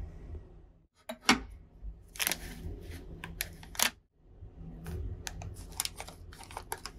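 Thin plastic wrappers crinkling and crackling, with sharp clicks as individually packed combs and toothbrushes are picked up and handled on a plastic tray. The sound comes in two runs of quick crackles, each starting after a brief silence.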